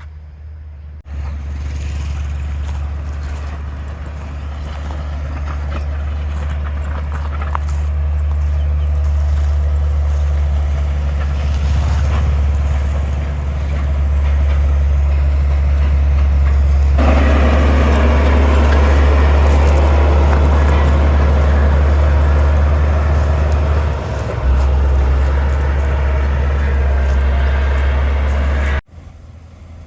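Heavy diesel construction machinery running with a deep, steady engine hum. About halfway through, a louder, harsher working noise joins in. The sound starts and cuts off abruptly.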